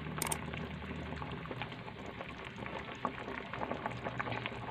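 Chicken and potato curry bubbling in an aluminium pot, a steady patter of small popping bubbles. A brief sharp click comes just after the start.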